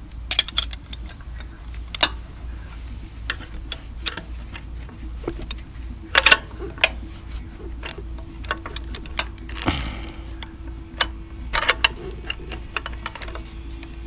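Irregular metal clicks and clinks of a hand wrench being fitted and worked on the serpentine belt tensioner pulley bolt, over a steady low hum.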